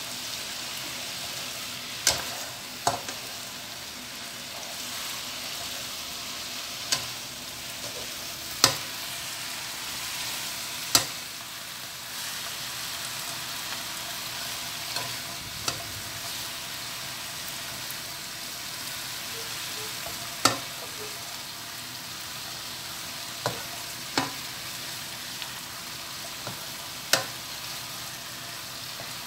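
Leafy greens stir-frying in a wok: a steady sizzle, with sharp knocks of the spatula against the pan every few seconds, about ten in all at uneven intervals.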